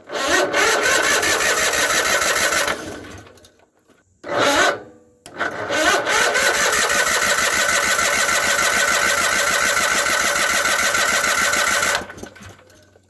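Electric starter cranking a Case Ingersoll garden tractor's engine with the spark plug wires disconnected, so the engine turns over without firing. It cranks for a couple of seconds, gives a short bump, then cranks again for about six seconds before stopping. The cranking drives the Hydrive pump to push the old oil out of the hydraulic system.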